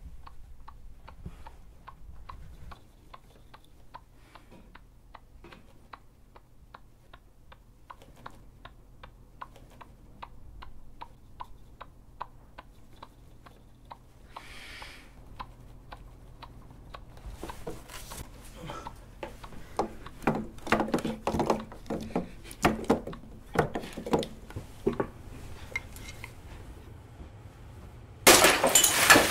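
Pocket watch ticking steadily, roughly two and a half ticks a second, for the first half. A short hiss follows, then irregular knocks and thumps that grow louder. Near the end a sudden loud rush of water gushes out of a glass aquarium.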